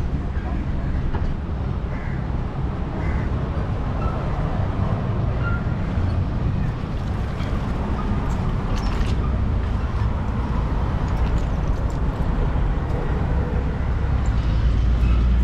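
Steady low rumble of a fishing boat's engine running, with wind and water noise over it.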